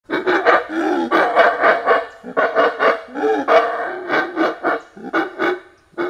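Monkeys yelling and screaming: bursts of loud, quick repeated calls with short breaks between, fading out near the end.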